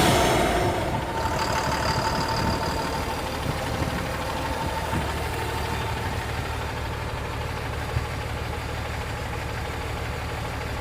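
Cummins common-rail diesel engine of a Tata BS4 tipper truck running, easing down over the first second and then idling steadily.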